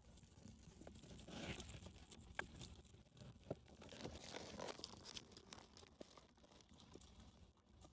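Guinea pig chewing and tearing a fresh corn leaf: faint crunching and leaf rustling with a few sharp crunches.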